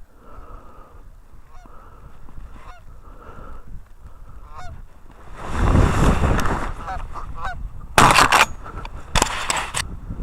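Geese honking repeatedly, then a loud rush of noise and two shotgun shots about a second apart near the end.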